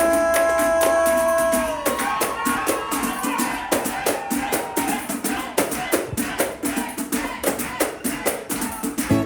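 Samba band playing live: a held chord ends about two seconds in, and then the percussion carries on alone, drums and shakers playing a busy samba rhythm.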